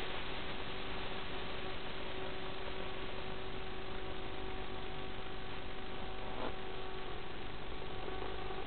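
Steady hiss of static with a faint, constant hum on the audio of an analog FPV video link, as recorded by the goggles' DVR. The sound stays even throughout, with no clear rise or fall of a motor.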